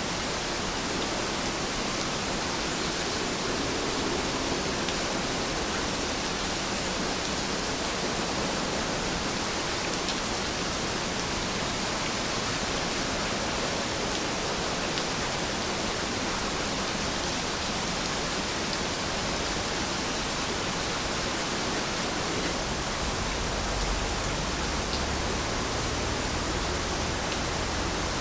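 Steady rainfall, an even hiss with faint scattered drop ticks, and a brief low rumble about 24 seconds in.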